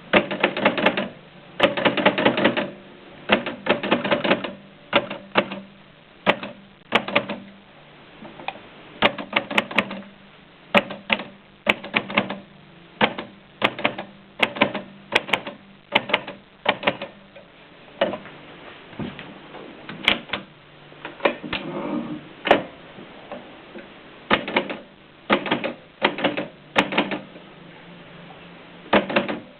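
1925 Mignon index typewriter being typed on: sharp clacks as each letter is printed, some in quick runs and some single, with short pauses between them.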